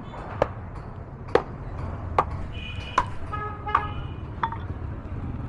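Heavy cleaver chopping through buffalo trotter hooves, six sharp strikes a little under a second apart. Vehicle horns honk in the background around the middle.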